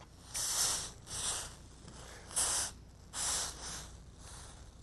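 A wet paper towel pressed and wrapped around a hot metal crucible, giving about six short hissing bursts as the water meets the hot metal and cools it.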